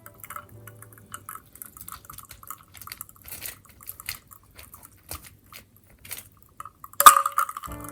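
Carbonated Mitsuya Cider fizzing in a glass: a steady crackle of tiny bubbles popping at the surface. About seven seconds in comes one much louder sudden sound with a brief ring.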